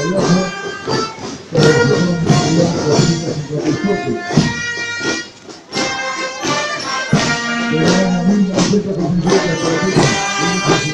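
Marching band with brass and drums playing a march to a steady beat, the sound briefly dropping off about five seconds in.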